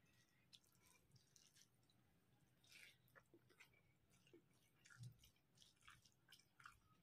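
Faint eating sounds: fingers mixing rice and curry on a plate, with soft, wet, irregular clicks of chewing.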